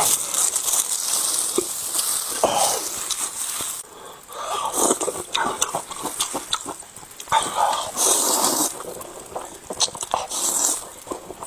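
Close-miked eating sounds: wet chewing and mouth smacks with many small clicks, and hissing slurps of noodles, the loudest about eight seconds in.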